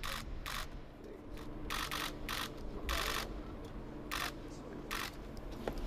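Press photographers' camera shutters clicking at irregular intervals, with a longer rapid burst about three seconds in, over a faint steady room hum.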